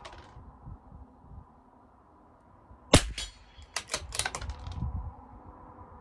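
A single .22 LR rifle shot from a CZ 457 LRP bolt-action rifle about three seconds in. Less than a second later comes a quick run of sharp metallic clicks as the bolt is worked to eject the case and chamber the next round.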